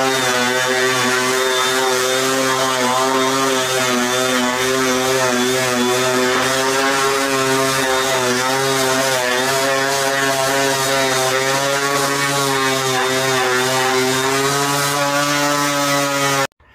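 DeWalt random orbital sander running steadily while sanding a wooden frame, a constant motor hum and buzz whose pitch wavers slightly as it is pressed and moved over the wood. It cuts off suddenly near the end.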